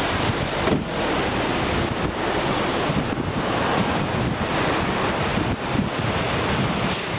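Ocean surf washing onto a sandy beach, with wind buffeting the microphone and a steady high hiss over it.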